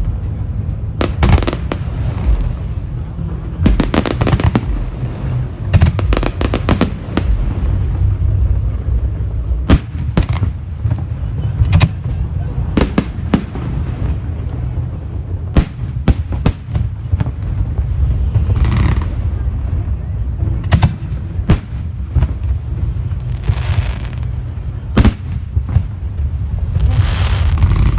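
Aerial fireworks display: repeated sharp bangs of shells bursting, some coming in quick clusters of crackles, over a steady low rumble.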